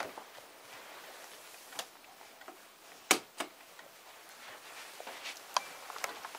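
A few scattered light knocks and clicks from movement around a small room with low background hiss. The sharpest knock comes about three seconds in, with a second one right after it.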